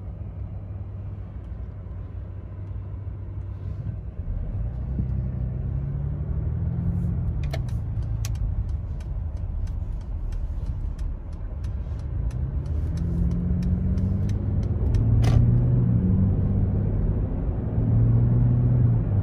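Mercedes-Benz GLS 400d's 3.0-litre inline-six diesel heard from inside the cabin: a low rumble that climbs in pitch as the SUV pulls away from a standstill and accelerates, dropping back twice as it shifts up. A run of light clicks comes in the middle and a single sharp click near the end.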